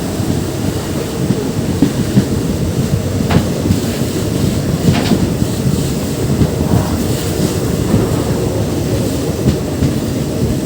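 Passenger train running on the rails, a steady low rumble of the moving coach, with a couple of faint high squeaks about three and five seconds in.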